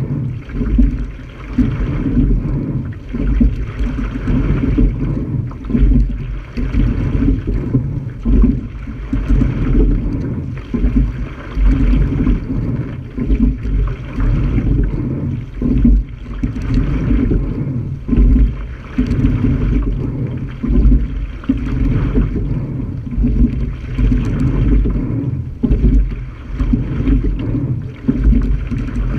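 Water rushing along the hull of a sculling shell under way, with an uneven wind rumble on the bow-mounted camera's microphone.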